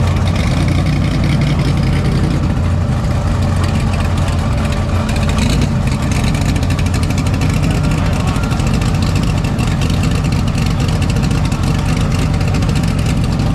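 Drag-race car engines idling loudly at the starting line, a steady low rumble that neither revs nor changes.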